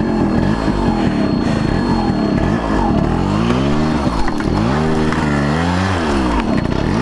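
Yamaha RX100's two-stroke single-cylinder engine revving as the bike is worked through dense thorny brush. The revs rise and fall twice in the second half.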